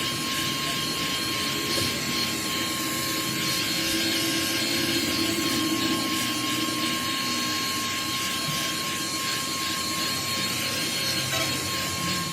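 Steady machine noise with a constant high whine running through it; no separate blows stand out.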